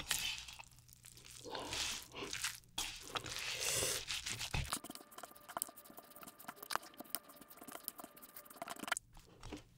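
Spicy squid bibimbap being mixed in its bowl: irregular soft scraping and wet mixing noises of rice and sauce, thinning to light ticks over the second half.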